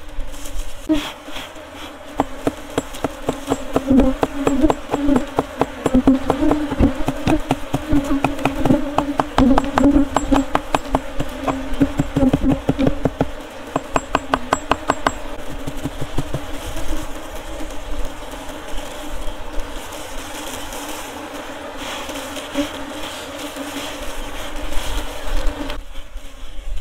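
A honey bee colony buzzing steadily as its hollow-log hive is smoked and cut open for honeycomb. A rapid run of sharp clicks, about four or five a second, sounds through the first half and stops about two-thirds of the way in.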